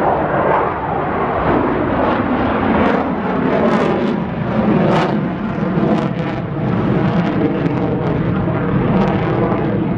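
Aircraft engine noise from an aerobatic display, a loud continuous sound with no break.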